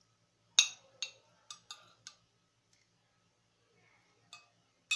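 Metal spoon and fork clinking and scraping against a ceramic plate while eating rice and chicken curry. There is a sharp clink about half a second in, a few quicker clinks over the next second and a half, then two more near the end.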